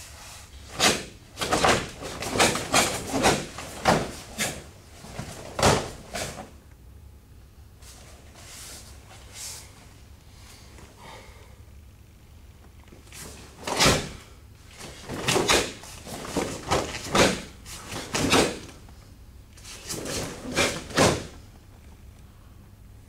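Sharp cracks of a karate gi snapping with fast strikes and bare feet slapping and stamping on foam mats during a karate kata. The cracks come in a quick flurry over the first six seconds, then after a quiet spell in two shorter flurries.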